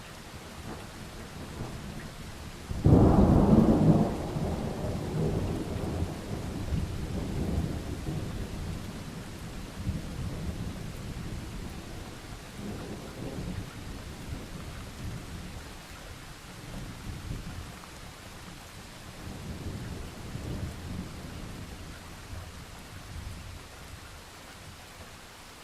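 Thunderstorm: steady rain with a sudden loud thunderclap about three seconds in, followed by a long rolling rumble that swells and fades several times before dying away.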